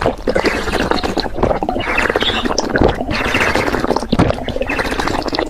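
Close-miked eating sounds: wet chewing and slurping with a dense run of quick, irregular clicks.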